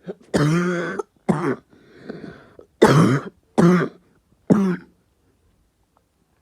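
A person coughing: one long cough and a short one, a noisy breath drawn in, then three more short coughs.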